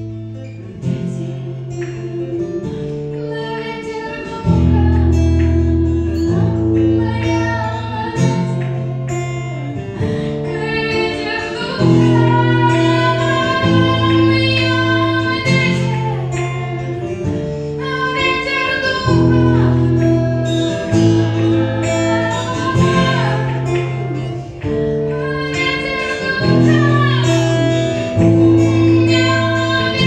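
A woman singing a worship song while playing chords on an acoustic guitar, the chords changing every second or two under her melody.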